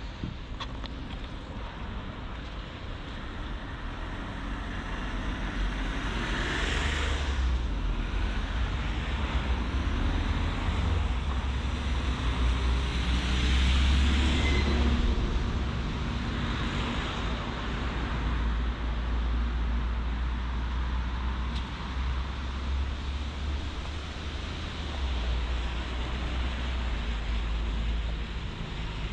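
Road traffic on a city street: several vehicles pass one after another, with a low rumble under the tyre noise, loudest about halfway through.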